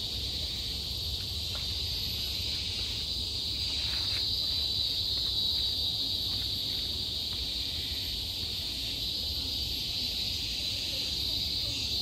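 Steady chorus of forest insects, one continuous high-pitched drone that never breaks, over a faint low rumble.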